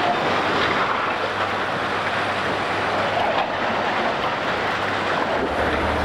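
Loud, steady din of heavy demolition machinery breaking up a building, a rough noise without a clear pitch; near the end a lower, steady engine hum comes in.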